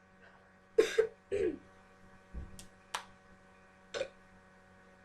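A few short, breathy bursts of a person's voice, one falling in pitch about a second and a half in, over a steady electrical hum. A low thump and two sharp clicks come in the middle.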